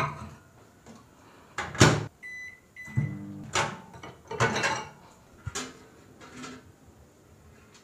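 Microwave oven being worked: the door shuts with a knock, the keypad gives two short beeps, and then a glass bowl and dishes knock and clatter as they are handled.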